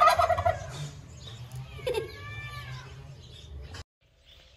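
Turkey calling: a loud trilling gobble tails off at the start, then a short falling call comes about two seconds in. The sound cuts out abruptly near the end.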